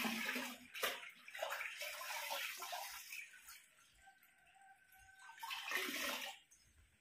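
Water splashing and dripping as wet clothes are lifted and wrung out by hand over a sink basin. There are splashes through the first three seconds and another burst about six seconds in.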